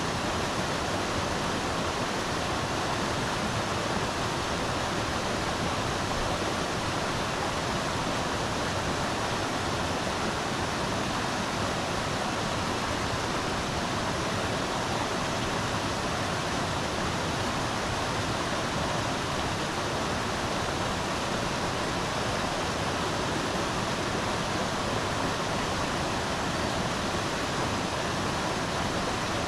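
River water rushing steadily, an even unbroken noise.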